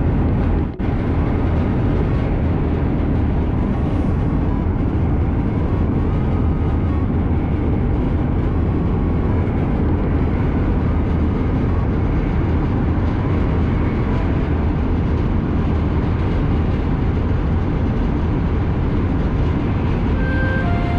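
Hokuriku Shinkansen train running at speed, heard from inside by the door: a loud, steady rumble of wheels and air, with a brief dip about a second in. A few short tones sound near the end.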